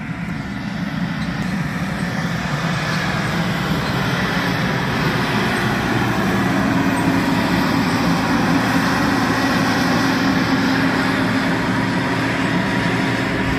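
Case IH self-propelled sprayer's diesel engine running steadily as the machine drives close past, spraying liquid fertilizer. It grows louder over the first several seconds, then holds.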